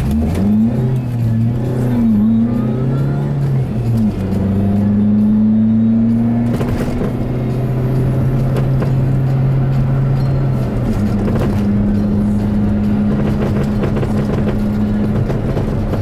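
Subaru Vivio RX-R being driven, its engine note rising and falling for the first few seconds and then holding steady. Knocks are scattered through, loudest about seven seconds in: the rattle from the front left suspension over bumps, whose cause the owner has not found despite finding no play in the wheel and suspension parts.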